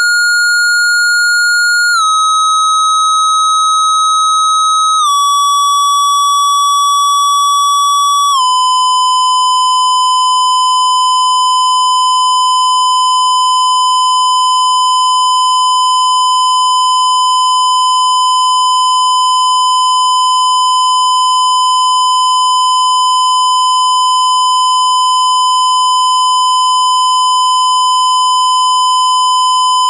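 Electronic pure sine test tone of a hearing test, sounding continuously. It steps down slightly in pitch three times over the first eight seconds or so, then holds one steady pitch.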